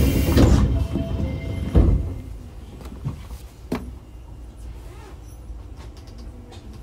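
Osaka Metro 24 series train's sliding passenger doors closing: a rushing noise that ends in a heavy thud about two seconds in, then two lighter clunks, after which a low steady rumble remains while the train stands.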